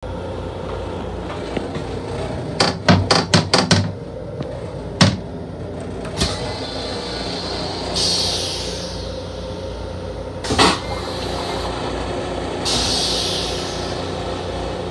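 Long Island Rail Road M7 railcar toilet flushing: a quick run of knocks and a few single knocks, then two hissing rinses around the stainless steel bowl, the second about four seconds after the first. Under it runs the steady rumble and hum of the moving train.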